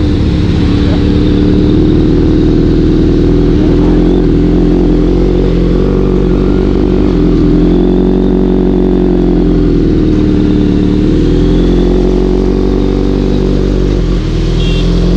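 Motorcycle engine running under way at fairly steady revs, its pitch rising and dipping slightly, with a steady rushing noise over it.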